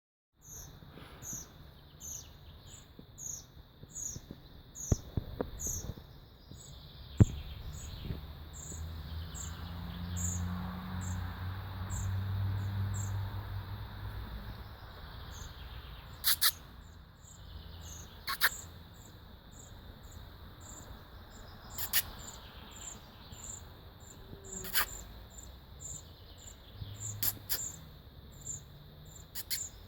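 Baby birds chirping: short, high peeps repeating about twice a second, with a few louder, sharper calls in the second half. A low rumble runs under the middle part.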